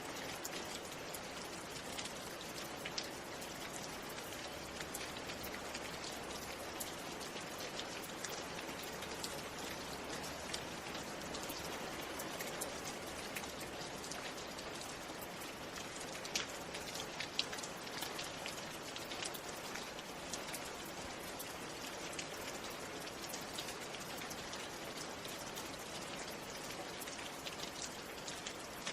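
Steady rain falling, a continuous hiss with many individual drops tapping on a surface.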